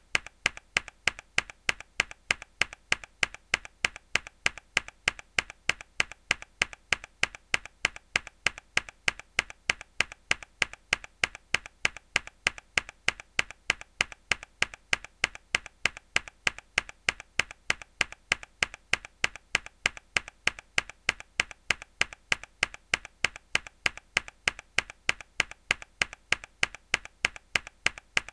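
Mechanical keyboard key pressed hard over and over: sharp clacks at an even rhythm of about three a second, each with a fainter click just before the main strike.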